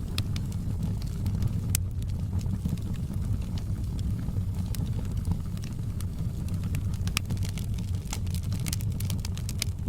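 Wood fire burning in a fireplace: a steady low roar with scattered sharp crackles and pops, coming thicker near the end.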